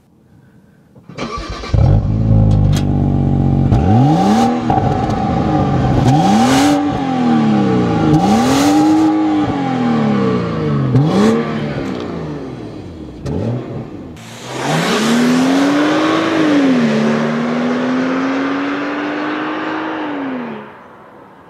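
A car engine revving up and falling back several times, about every two seconds, with a few sharp clicks along the way. It then makes one more rise and a long steady pull with slowly climbing pitch that cuts off shortly before the end.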